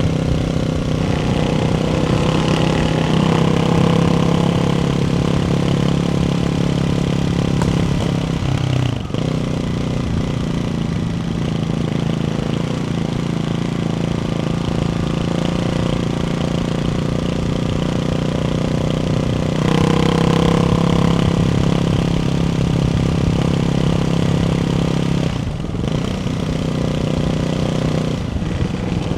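Ducati Hypermotard 698 Mono's single-cylinder engine through a Termignoni exhaust with the baffles fitted, running steadily under way. The engine note dips briefly about nine seconds in and again near the end, and changes pitch around twenty seconds in as the throttle changes.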